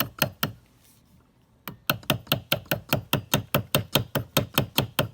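Light, rapid hammer taps, about five a second, driving the bolt catch pin into an AR-15 lower receiver. They pause for about a second near the start, then carry on steadily.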